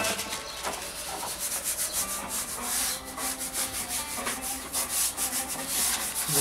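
Hands rubbing back and forth over a sheet of paper laid on a beeswax foundation sheet in a wired wooden hive frame, a run of repeated scraping strokes. The rubbing presses the foundation down so that it touches the frame wires all over.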